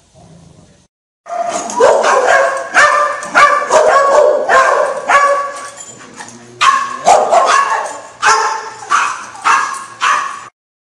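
Dogs barking loudly in a quick series, about two barks a second, starting about a second in and stopping shortly before the end.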